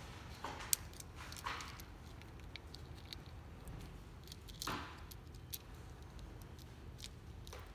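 Scattered small clicks and short rustles of hands handling a blind's chain and control parts, the sharpest click about a second in, over a low steady hum.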